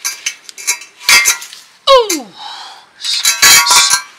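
Ratcheting wrench clicking in quick runs as it turns an oxygen sensor out of a catalytic converter, with the sensor breaking loose about halfway through. A fast run of clicks follows near the end.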